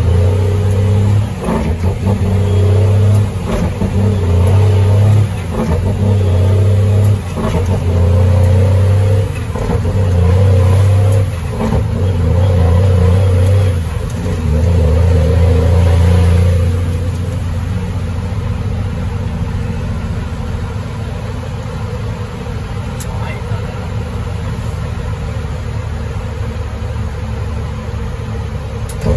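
Cummins M11 Select Plus diesel pulling the Freightliner FLD, heard from inside the cab. For the first half its sound drops out briefly every couple of seconds, as the 18-speed is shifted up through the gears, then it settles to a steadier, somewhat quieter run.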